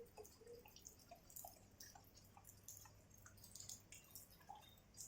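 Faint, irregular dripping of rainwater, scattered small drips.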